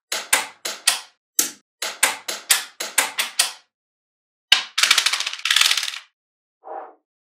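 Small magnetic balls clicking sharply together, about a dozen separate snaps over the first few seconds as pieces are pressed onto the block. About four and a half seconds in, a single loud snap is followed by a rapid rattling clatter of many balls snapping into place at once as a flat sheet of them is laid down.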